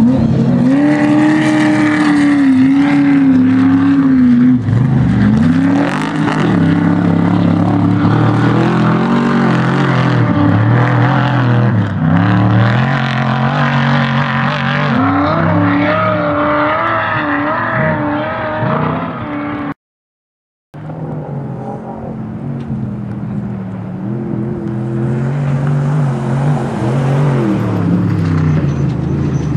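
Off-road race vehicles' engines running at speed as they pass, the engine note rising and falling again and again with revving and gear changes. The sound cuts out completely for about a second roughly two-thirds of the way through, then picks up again.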